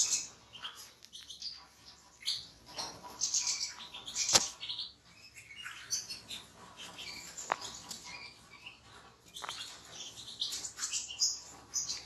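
European goldfinches twittering and chirping with many quick high notes, with a sharp click a little over four seconds in and a fainter one later.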